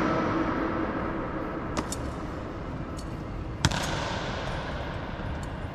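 Sharp knocks from an honor guard's drill movements, echoing in a large stone hall: a faint double click about two seconds in and one loud crack a little later, each leaving a long ringing echo.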